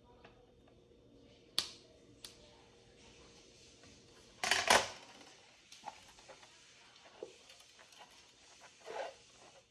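Handling noise from a plastic star-shaped lamp housing: scattered clicks and knocks as it is turned over and set down on a table, the loudest a quick double knock about halfway through, with small ticks after.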